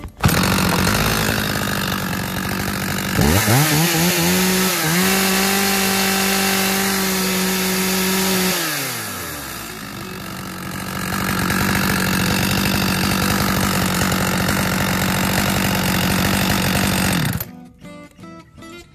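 Dolmar 115 52cc two-stroke chainsaw engine running at idle. About three seconds in it revs up and holds high revs for about five seconds, then drops back to idle. The sound cuts off suddenly near the end.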